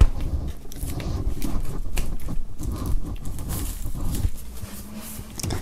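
Plastic shrink-wrap on an LP record sleeve crinkling and tearing as it is slit and peeled off, a run of irregular crackles.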